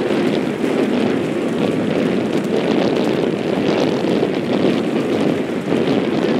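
Steady jet roar from the Frecce Tricolori's nine-ship formation of Aermacchi MB-339 jets passing overhead, mixed with wind buffeting the microphone.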